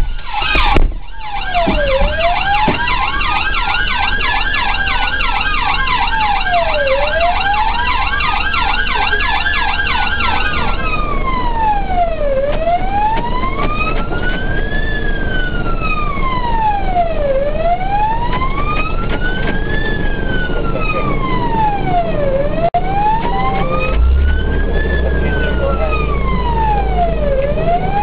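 Police car sirens: a slow wail rising and falling about every five seconds, joined until about ten seconds in by a second siren on a fast, rapidly repeating pattern.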